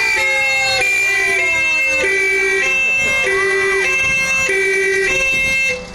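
Two-tone siren of a vintage fire engine driving past, alternating high and low notes about every 0.6 s. It is loud and cuts off suddenly near the end.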